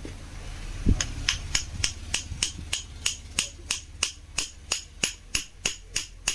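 Hammer tapping steadily, about three or four strikes a second starting about a second in, to drive loose a drill armature stuck fast inside its field housing.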